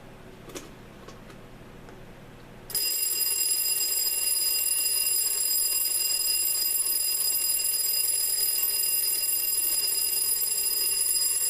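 Ken-Tech T-4678 twin-bell alarm clock's alarm going off, really loud: after a couple of faint clicks it starts abruptly about three seconds in and rings steadily with several high, piercing tones.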